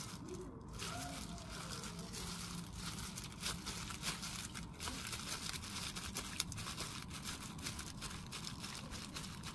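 Disposable plastic gloves and a dried seaweed sheet crinkling and rustling as a gimbap is rolled by hand, a steady run of small crackles.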